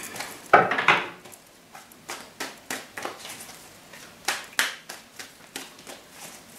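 Tarot cards handled and shuffled by hand: a string of short, crisp card snaps and taps, uneven, sometimes two or three close together.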